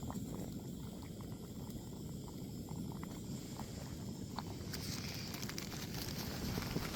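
Wind buffeting the microphone in a steady low rumble, with faint clicks; a crackly rustle joins in from about two-thirds of the way through.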